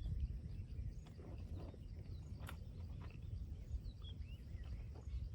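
Outdoor ambience: a steady low rumble with a few faint, short bird chirps and a couple of light clicks.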